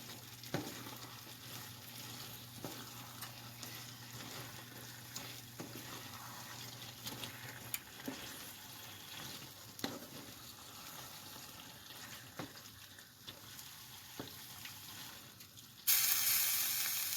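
Food sizzling in a hot pan on the stove, with a scattering of sharp clicks from a utensil against the pan every second or two. Near the end a much louder hiss starts suddenly.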